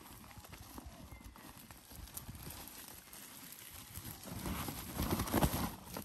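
Handling noise from a woven plastic sack and a mesh net: faint scattered clicks, then louder rustling and knocking in the last second and a half as the net is worked into the open sack to tip frogs in.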